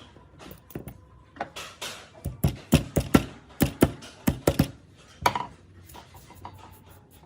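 Irregular run of sharp knocks and clicks from workshop handling of the circular saw's parts, busiest and loudest about two to five seconds in, then dying away.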